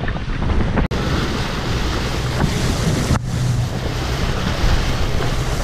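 Wind buffeting the microphone over a motorboat's steady low engine drone and rushing water as the boat moves. The sound breaks off very briefly about a second in and again about three seconds in.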